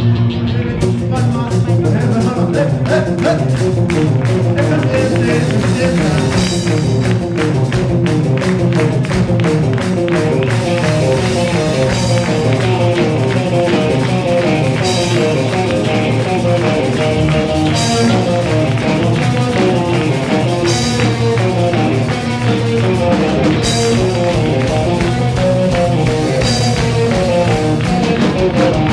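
A rock band playing live: a fast repeating picked guitar figure over bass and drums, with steady ticking cymbals and a bright accent about every three seconds.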